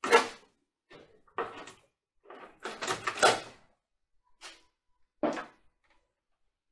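Several separate clunks and scrapes of sheet-metal bodywork, a car's rusty front inner wing panel being worked loose by hand, with the longest scrape a little before the middle.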